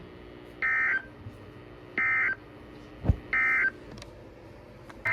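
Emergency Alert System End of Message signal: three short bursts of modem-like data tones, about 1.3 s apart, closing the severe thunderstorm warning. A low thump falls just before the third burst.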